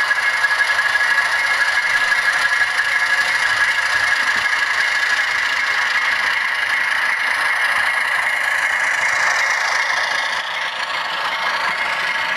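HO-scale Atlas ALCO RS-1 model diesel locomotive running along the track: a steady high whine with rattle from its motor and wheels on the rails, easing off a little near the end as it passes close by.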